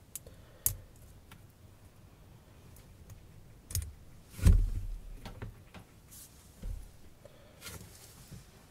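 Scattered light clicks and taps of small metal parts of a Rose V2-S rebuildable atomizer being handled while an O-ring is taken off, with one louder knock about four and a half seconds in.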